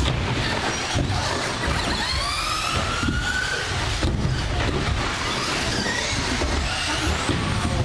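Several electric RC short-course trucks racing: motor whines rising and falling in pitch as they accelerate and back off, over the rumble of tyres on the track, with occasional knocks from the trucks on the jumps.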